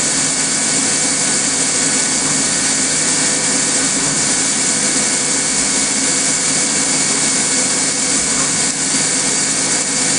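Fadal CNC mill engraving with a Big Kaiser 5x spindle speed multiplier, its spindle at 3,000 rpm turning the cutter at about 15,000 rpm: a steady high whine and hiss from the spinning tool and the coolant spray, with no change in pace.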